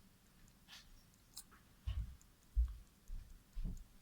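A small pet bird's faint clicking coughs: a couple of short sharp ticks in the first second and a half. Four dull low thumps follow in the second half, the loudest about two and a half seconds in. The bird is sick and coughing, breathing with difficulty.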